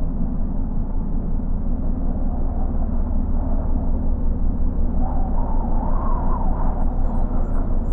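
A steady low outdoor rumble with no clear source, with a small bird starting to chirp near the end.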